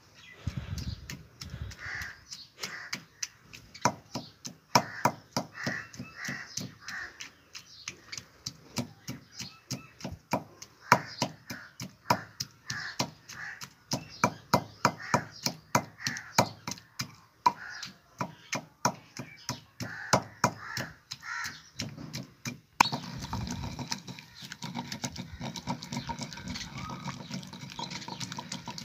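Wooden pestle pounding tomatoes, chillies and herbs in a stone mortar, about two knocking strokes a second. About 23 seconds in, the strikes give way to a steady grinding as the pestle is worked around the bowl to mash everything into a paste.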